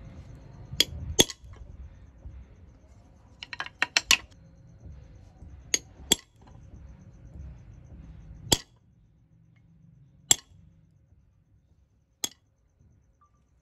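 A hammer striking a small steel punch held on a wooden spoon handle that rests on a wooden block, punching decorative dot marks into the wood: about eleven sharp metallic taps at uneven intervals, with a quick run of four about four seconds in.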